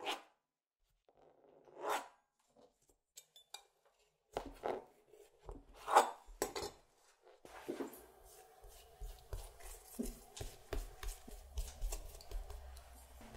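A knife cutting through a slab of laminated butter dough along a steel ruler in several separate strokes, with the ruler and dough pieces being handled between cuts. Near the end, a pastry brush spreads water on the dough.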